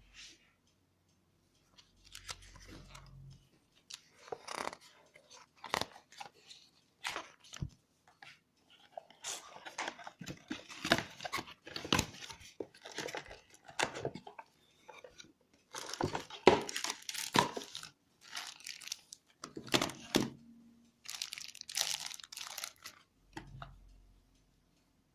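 Packaging being handled and unwrapped: irregular rustling, crinkling and tearing of plastic and paper, with scrapes and sharp clicks.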